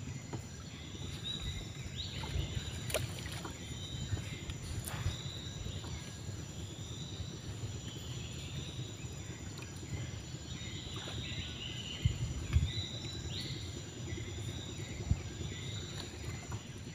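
Outdoor ambience: a steady high-pitched drone and repeated short chirping calls over a low rumbling noise, with a few sharp thumps, the loudest about twelve seconds in.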